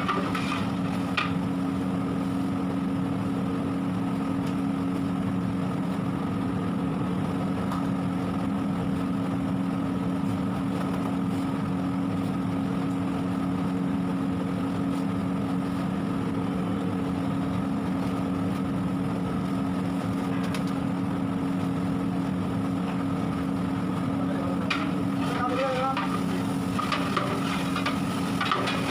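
A steady hum made of several held tones over a hiss, unchanging throughout. A few clicks come at the start, and a wavering pitched sound comes in near the end.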